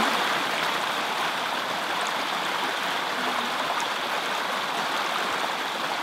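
Small rocky woodland stream running over stones in little cascades, a steady rushing of water.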